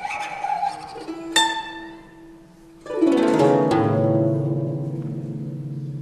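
Solo guzheng being plucked: a few scattered notes, then a sharp bright pluck about a second and a half in. About three seconds in comes a sweep down across many strings into a full chord that rings on and slowly fades.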